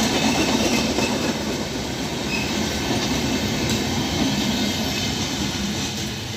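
LHB passenger coaches rolling past on the adjacent track, a steady loud rumble of wheels on rail. It fades near the end as the last coach, the luggage-brake-and-generator car, moves away.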